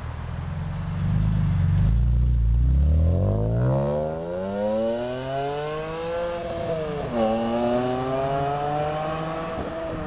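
BMW E46 M3's inline-six accelerating hard away from the roadside. A loud deep rumble at first gives way to revs climbing steadily, with an upshift about seven seconds in, another climb, and a second shift near the end as it fades into the distance.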